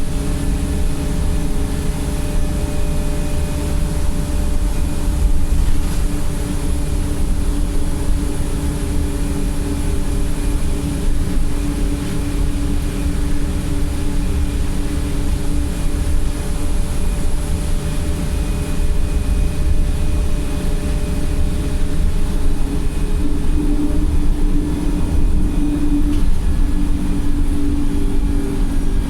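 Wright StreetLite single-deck bus heard from inside while under way: a steady diesel engine drone over road rumble, the bus in limp mode. About five seconds before the end the engine note swells briefly, then falls back.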